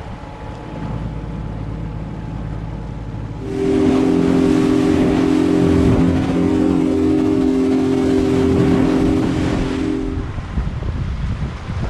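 Outboard motor of a small aluminium boat running underway, with wind and water rush. About three and a half seconds in it gets abruptly louder, a steady engine hum with heavy wind and spray noise, which drops away again shortly before the end.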